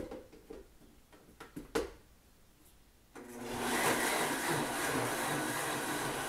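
A few light knocks and clicks, then about three seconds in an electric blender switches on and runs steadily, puréeing boiled tomatoes, onion, serrano chile and garlic with a little water into a salsa.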